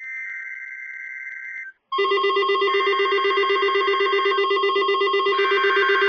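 A short buzzy burst of NOAA Weather Radio SAME data tones, then, about two seconds in, several weather alert radios set off by the alert sound their alarms together: a loud steady mix of alarm tones pulsing rapidly.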